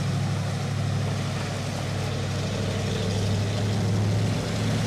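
Heavy fire truck's engine running steadily as it drives through deep floodwater, with a constant wash of water from its wake.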